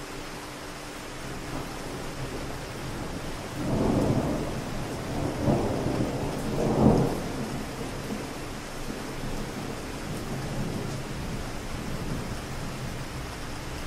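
Steady rain falling on a city street. Distant thunder rumbles about four seconds in, in three swells, the last and loudest about seven seconds in, then fades back under the rain.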